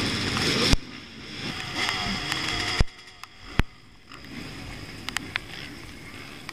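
A crowd of dirt-bike engines running and revving at a race start line, mixed with rain and spray noise. The loudness drops abruptly a little under a second in and again near three seconds, each time with a sharp click.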